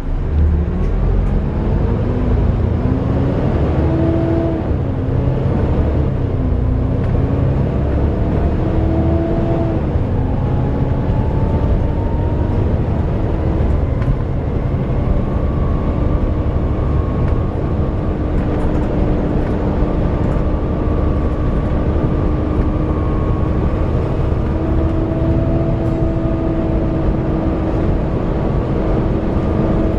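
Volvo B7TL bus's engine cooling fan whining like a vacuum cleaner over the rumble of its diesel engine. The whine rises and wavers in pitch over the first ten seconds or so, then holds steady.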